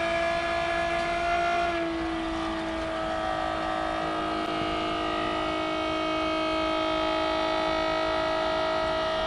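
Electric oil change pump motor running with a steady whine, filling a boat generator's crankcase with fresh oil; its pitch dips slightly about two seconds in.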